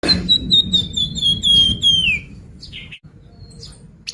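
Flamboyan songbird singing a lure song: a fast run of high, clear whistled notes for about two seconds, ending in a downward slur, then a few short chips. A low background rumble runs beneath.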